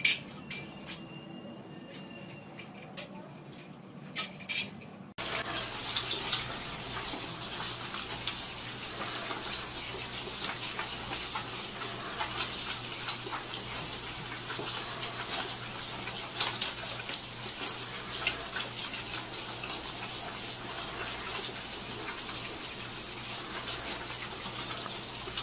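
A few scattered clicks, then about five seconds in a steady rush of running water with fine crackling splashes and a low steady hum underneath.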